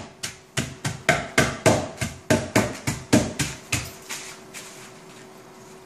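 A flat-faced metal mallet pounding a towel-wrapped block of dry ice on a wooden cutting board, crushing it. The blows come about four a second, then stop about four seconds in.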